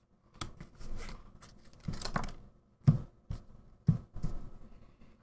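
Magic: The Gathering trading cards being handled and sorted: a scattered run of short taps, slides and rustles as cards are shuffled in the hands and set down on piles on a playmat.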